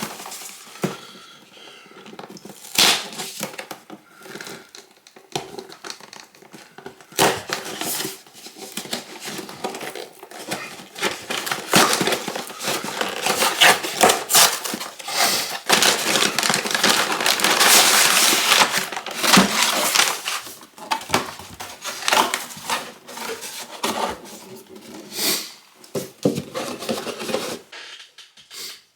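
Crinkling and tearing of a Lego set's packaging, plastic parts bags and cardboard, with many scattered clicks, as the kit is opened; busiest and loudest about halfway through.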